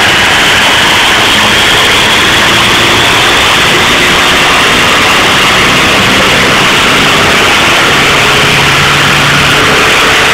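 Turbocharged TDI diesel engine running hard under load on a chassis dyno, very loud and steady. A high whine rises in pitch over the first few seconds and then holds.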